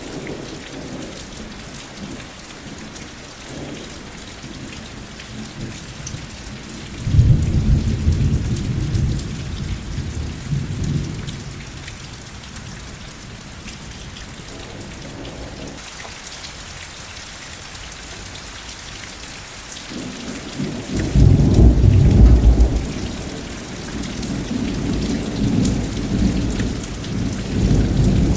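Steady rain with thunder. A low rumble breaks in about a quarter of the way through and dies away over several seconds; a louder one comes about two-thirds through and rolls on, swelling again near the end.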